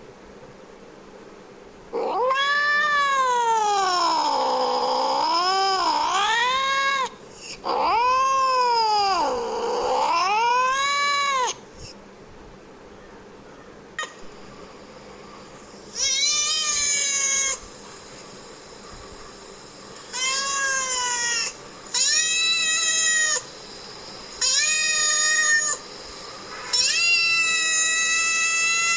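Domestic cat calling: two long, drawn-out yowls that waver up and down in pitch, then a run of five shorter meows about two seconds apart.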